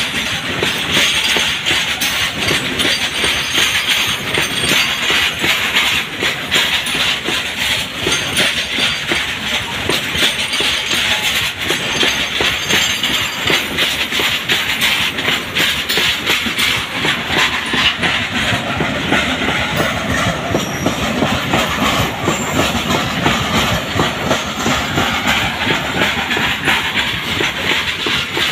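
Open-top freight wagons of a goods train rolling past close by: a steady wheel-on-rail noise with a rapid, continuous clatter of wheels over the rail joints.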